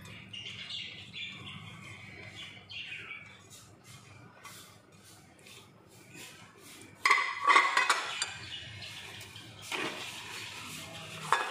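Silicone spatula scraping mashed eggplant off a plate into a glass bowl, with light squeaks. About seven seconds in there is a loud clatter of the plate and spatula against the glass bowl, and another knock near ten seconds.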